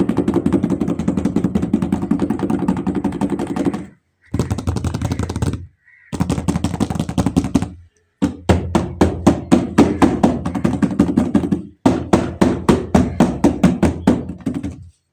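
Rapid rattling clatter of knocks in several bursts separated by short gaps, slowing in the second half to evenly spaced strong knocks about three a second.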